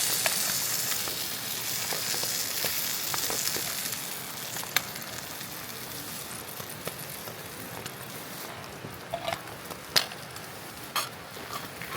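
Food sizzling in a pan on a camp stove, loudest at the start and easing off, with a few sharp clicks of a utensil against the pan.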